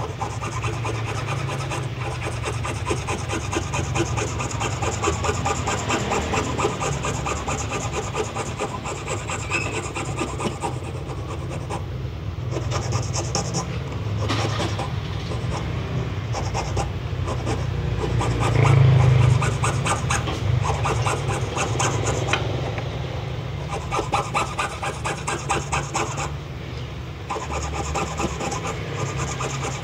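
A fine hand file rasping along the edge of an acrylic amulet frame in quick back-and-forth strokes, trimming and smoothing its side, with a few short pauses.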